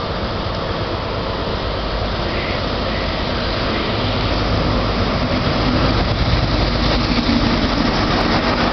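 InterCity 125 (HST) train's Class 43 diesel power car arriving along the platform, a steady diesel engine and wheel-on-rail rumble that grows louder from about four seconds in as the power car draws level and passes.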